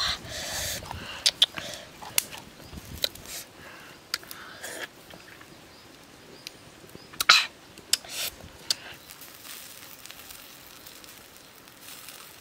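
A stone pestle scraping and knocking in a stone mortar, then the mouth sounds of someone eating. The sharpest and loudest is a smack a little past the middle.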